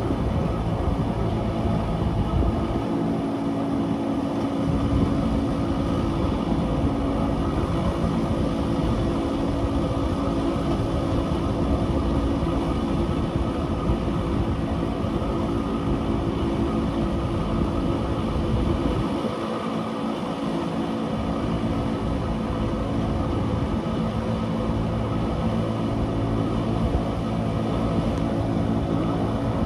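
Wengernalpbahn electric rack-railway train running, a steady rumble with a constant hum.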